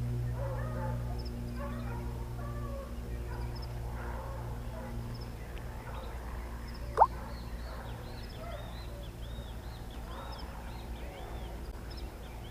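Hunting dogs baying in the distance, faint and off and on, on a wild boar's trail. A single short rising squeak about seven seconds in is the loudest sound, and a run of quick high chirps follows from about eight to eleven seconds in.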